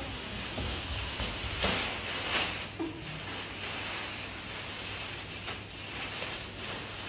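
Plastic garbage-bag costume crinkling and rustling as the wearer swings his arms, with a few louder rustles in the first half, over a steady hiss.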